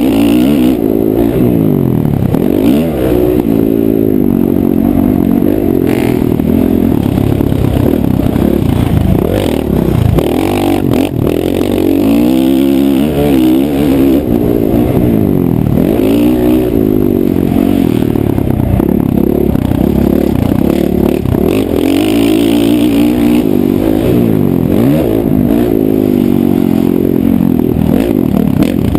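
Motocross dirt bike engine heard on board, revving up and dropping back again and again as the rider opens and closes the throttle around the track.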